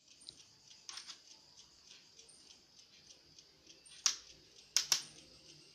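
Light clicks and taps from a netbook being taken apart by hand, with a few faint ticks early on and three sharp clicks near the end.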